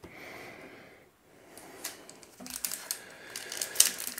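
Trading cards and plastic card-pack wrappers being handled: a soft rustle, then from about a second and a half in, a run of light clicks and crinkles.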